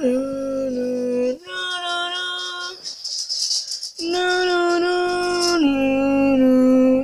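A child's voice humming a two-tone siren imitation: long held notes alternating high and low, broken about three seconds in by a hissing 'shh'.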